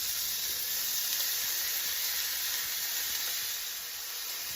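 Diced peppers and red onion sizzling steadily in hot olive oil in a skillet, freshly added to the pan, easing slightly near the end.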